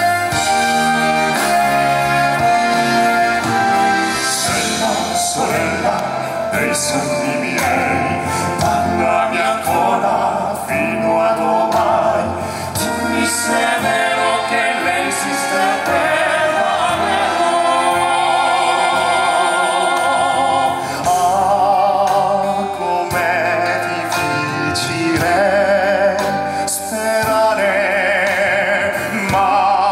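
Male classical-crossover vocal group singing an operatic ballad in Italian, with wide vibrato on long held notes, over musical accompaniment.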